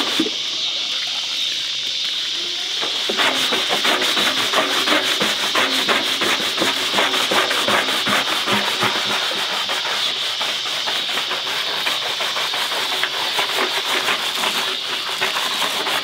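A hand scrubber rubbed quickly back and forth over the wet perforated stainless-steel drum of a washing machine, a fast run of rasping strokes that picks up about three seconds in.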